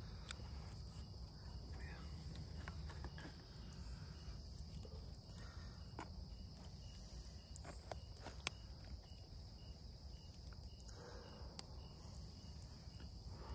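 Crickets trilling steadily at night, with a few faint clicks over them.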